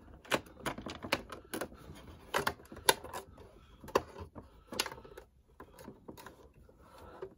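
Hard plastic clicking and knocking as the hatch of a 1996 Playmates Galileo shuttlecraft toy is pushed and worked shut by hand. The clicks come irregularly, thickest in the first five seconds, then sparser.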